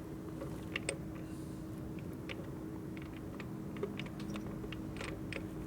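Scattered light metallic clicks and taps as a Harley Ironhead Sportster transmission is worked into the engine case, over a steady low hum.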